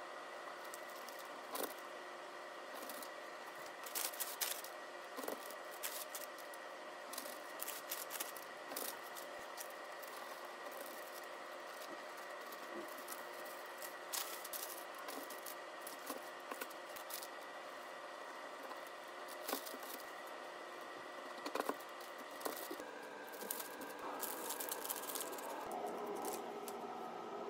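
A kitchen knife cutting through a pan of fudge brownies, the crisp crackly top giving short crackles and clicks, with parchment paper rustling. A faint steady set of tones hums underneath and changes pitch about three-quarters of the way through.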